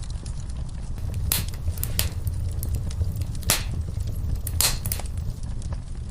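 Wood fire in a fireplace burning with a steady low rumble of flames and sharp crackles and pops, four of them loud, about a second apart.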